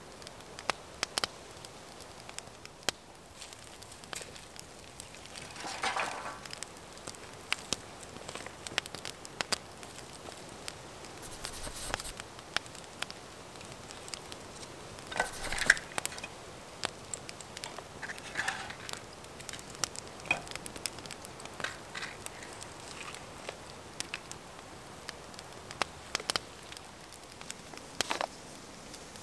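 Dry grass tinder and kindling being handled at a fire pit: scattered sharp clicks and crackles, with a few short bouts of rustling.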